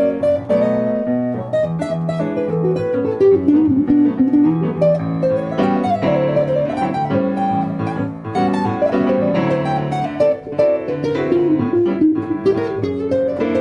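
Guitar playing a blues tune: plucked notes over a lower bass line, with an upper melody that bends and slides in pitch.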